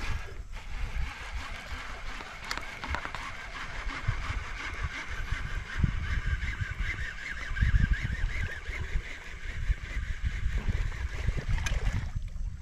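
Water lapping and gurgling against a small fishing boat's hull, with a steady high-pitched drone that stops near the end.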